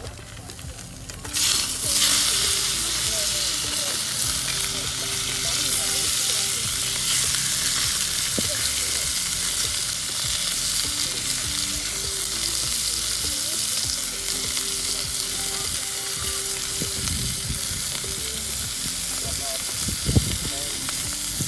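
Eye fillet steak searing in a hot frying pan, a steady loud sizzle. The sizzle jumps up about a second in as more steak goes into the pan, and there are a couple of soft knocks from the pan near the end.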